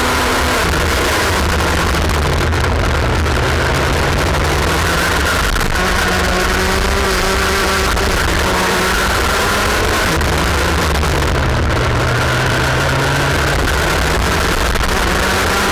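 IAME X30 125cc two-stroke kart engine, heard onboard at racing speed, with a heavy low rumble. Its pitch drops about a second in and again around ten seconds in as it slows for corners, climbing in between as it accelerates back up the revs.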